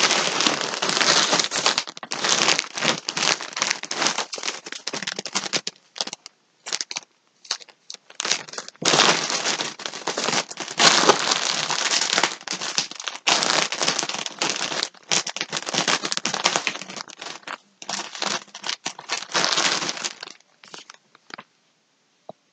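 Crinkly packaging rustling and crackling in quick bursts as yarn skeins are handled and pulled out of their wrapping. It stops for about two seconds some six seconds in, and dies away near the end.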